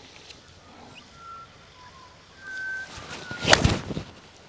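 A 7-iron strikes a golf ball off fairway turf: one sharp, loud crack about three and a half seconds in. Before it come a few short, steady high tones.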